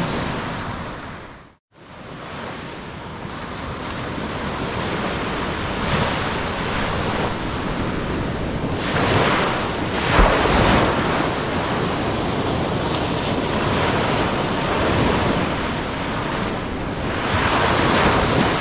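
Ocean surf washing onto the beach, a steady rush that swells louder about nine to eleven seconds in and again near the end, with wind buffeting the microphone. The sound drops out completely for a moment just under two seconds in.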